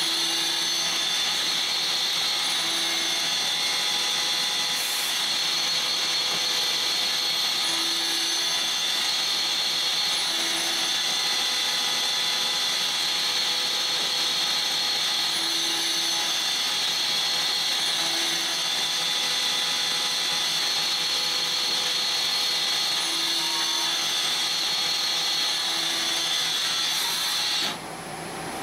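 CNC lathe machining a brass part: a steady high-pitched whine over a hiss of cutting and spindle noise. The sound cuts off suddenly near the end, and a different, quieter machine noise follows.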